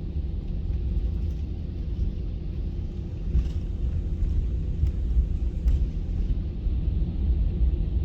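Steady low rumble of an Airbus A320 heard from inside the passenger cabin, with a few faint clicks.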